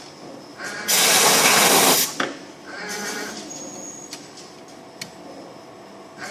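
CNC wire bending machine at work: a loud hiss lasting about a second, a sharp click, then its servo motors whining briefly as the wire is fed and bent, with a few light clicks after.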